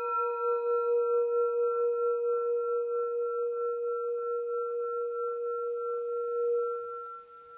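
Singing bowl ringing after a single strike: a main tone with several higher overtones, pulsing slowly in loudness as it fades. The main tone drops away about seven seconds in, leaving the higher overtone.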